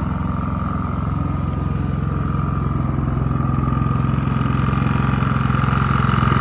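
Champion 4650 inverter generator's engine running steadily with no load on it.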